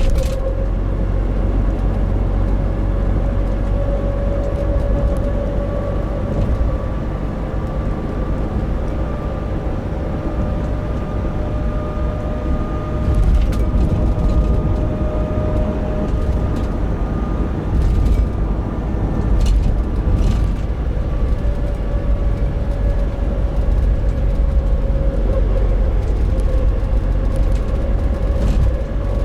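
Nissan NV350 Caravan van (YD25DDTi diesel) driving at steady throttle, with road and drivetrain rumble and a humming 'kōn' drone tone that swells and fades and drifts slightly in pitch. The owner hears this abnormal noise at around 1000–1500 rpm and wonders whether it comes from the differential.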